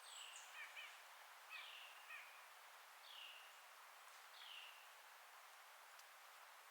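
Faint forest ambience: a bird gives short, downward-slurred calls, about four of them spaced a second or so apart in the first few seconds, over a steady soft hiss of wind in the trees.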